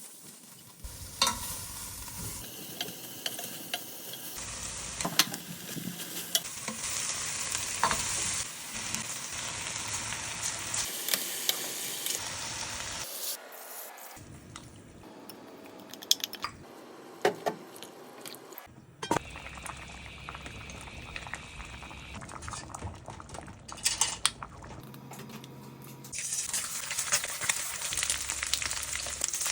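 Food sizzling as it is stir-fried in a pan, with a utensil clicking and scraping against the pan, heard in several short edited segments that cut in and out abruptly.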